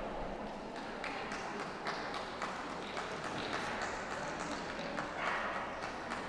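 Show-ring background: indistinct chatter from the crowd, with scattered light taps and clicks.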